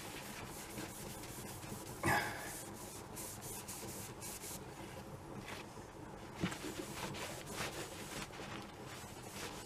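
Cloth rubbing up and down a bare metal air-rifle air cylinder, wiping it down with degreaser before bluing, in repeated short strokes; one stroke about two seconds in is louder.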